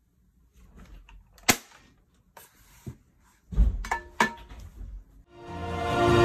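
Double-barrel pump-action airsoft shotgun being handled: a sharp snap of its mechanism about one and a half seconds in and a smaller click a little later, then knocks and a short clang as it is laid on a tabletop. Music swells in near the end.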